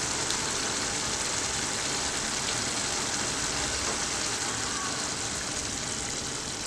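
Chicken liver and gizzard gravy simmering in a pan: a steady bubbling, sizzling hiss, slightly quieter near the end.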